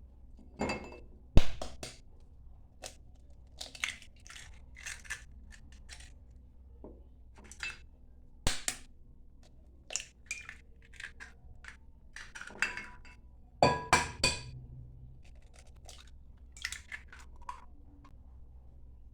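Kitchen prep handling: scattered clinks, taps and crinkles of bowls, utensils and packets, with a sharp knock about a second and a half in and a quick run of three clinks about two-thirds of the way through.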